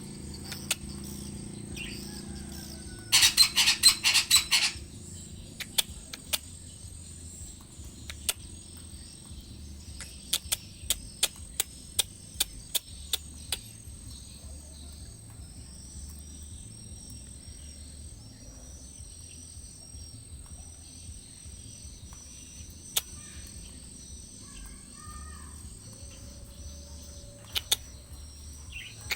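Parakeet (betet) letting out a loud burst of rapid, harsh chattering calls about three seconds in, followed by scattered sharp clicks. A steady high insect tone and a run of short repeated high chirps carry on underneath.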